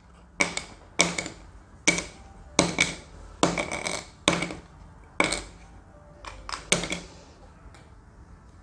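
Cardboard game tiles being set down one after another on a table: about ten light taps or slaps, roughly one a second.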